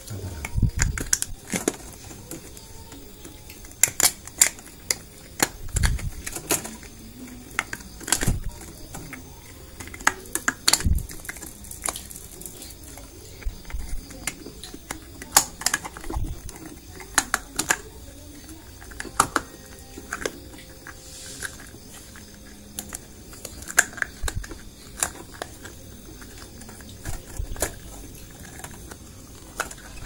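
Irregular clicks, taps and knocks of small plastic and rubber parts being handled: a new rubber seal being worked onto a washing machine's plastic drain-valve plunger.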